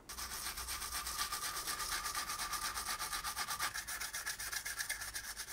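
A toothbrush loaded with soap lather scrubbing the body of a vintage Tri-ang model locomotive tender. The quick back-and-forth brushing strokes repeat steadily, several a second.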